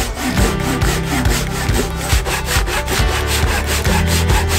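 Hand saw cutting across a softwood 2x4, with quick, even back-and-forth strokes rasping through the wood.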